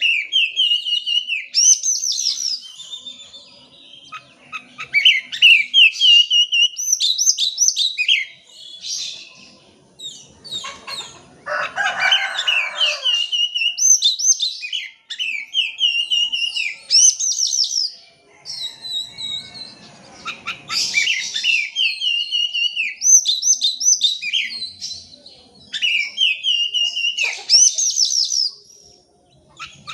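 Oriental magpie-robin (kacer) singing a loud lure song: varied phrases of clear whistles and fast rising-and-falling notes, with short pauses between them and a harsh rasping burst about twelve seconds in.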